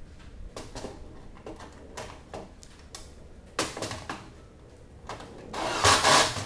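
Hand work at the nose of a light aircraft: a few light clacks and knocks, then two louder half-second rustling, scraping bursts about three and a half and six seconds in.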